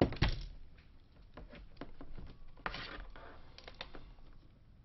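Sparse clicks and taps of a micro HDMI cable being plugged in and handled. The loudest click comes right at the start, and a few more follow about three seconds in.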